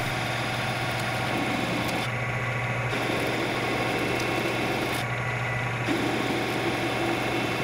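A ShopTask lathe-mill combo turning a 12L14 steel bar with a carbide insert under a looping CNC turning routine. The spindle drive gives a steady hum, and a higher cutting hiss over it drops out briefly twice.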